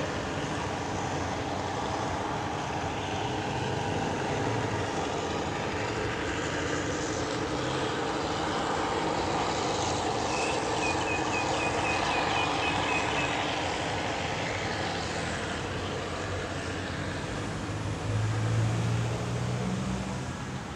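Diesel train running through the station, a steady rumble and rolling noise. About halfway through comes a quick run of high chirps, and near the end a deeper engine tone swells.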